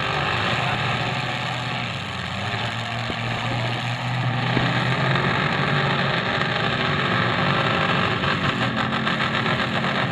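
Demolition derby cars' engines running with a steady low drone, the pitch shifting about halfway as the cars push against each other.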